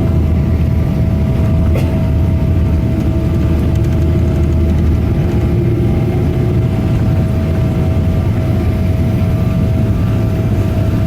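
Cabin noise inside a Boeing 777-200: a steady drone of the jet engines with a deep rumble, which eases a little about halfway through, and two steady tones.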